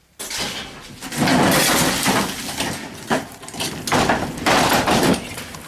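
Loud clattering and scraping as a petrol push lawn mower is wheeled out, lasting about four seconds with uneven jolts, then fading.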